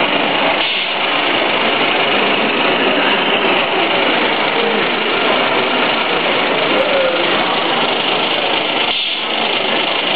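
Radio-controlled scale model trucks running: a steady small-motor whir, mixed with the general hubbub of a busy exhibition hall.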